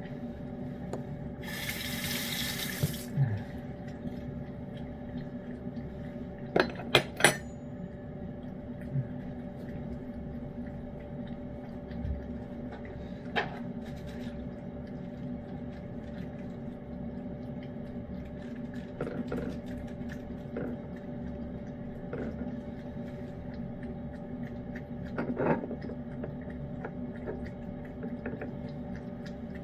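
A cat eating wet pâté food from a dish, with scattered sharp clicks and clinks against the dish, the loudest a quick cluster about seven seconds in, over a steady hum. A short hiss comes about two seconds in.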